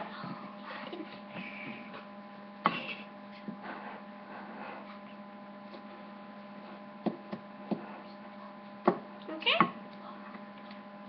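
Steady electrical hum, with a wooden spoon knocking and scraping against a ceramic mixing bowl as thick cake batter is stirred. A few sharp knocks stand out, the loudest clustered near the end.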